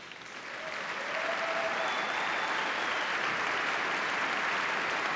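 A large crowd applauding, the clapping swelling over the first second and then holding steady.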